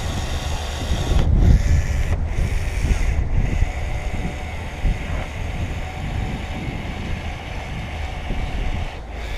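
Wind buffeting the microphone: a steady low rumble with a noisy hiss over it.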